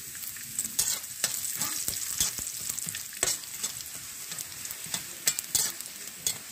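Raw peanuts frying in hot oil with tempering spices in a kadai, being stirred: a steady sizzle broken by frequent irregular crackles and scrapes.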